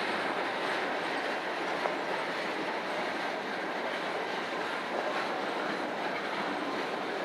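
Train cars rolling past, a steady noise of steel wheels running on the rails.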